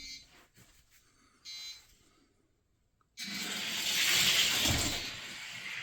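Two small derby cars rolling down a gravity race track side by side: a rushing whir that starts suddenly about three seconds in, swells, then fades as they reach the finish. A short faint beep-like tone comes about a second and a half in.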